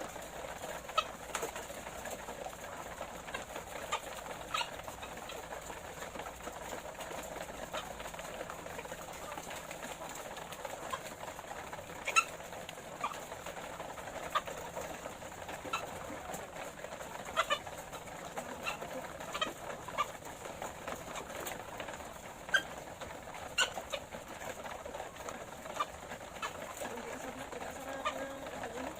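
A flock of laying hens clucking in a low, steady murmur, with scattered sharp clicks and taps.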